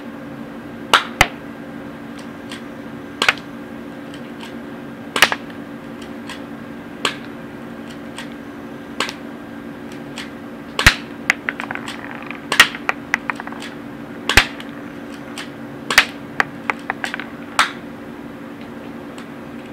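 K12 full-metal spring airsoft pistol fired single shots, about ten sharp snaps spaced every one and a half to two seconds, with fainter clicks in between.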